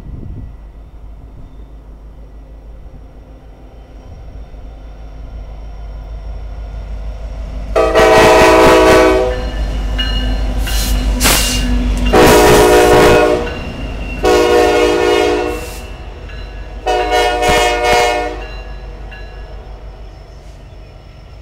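Diesel locomotive passing close by, its engine rumble building up, then four long blasts of its air horn, each a chord of several steady tones, before the engine sound eases off near the end.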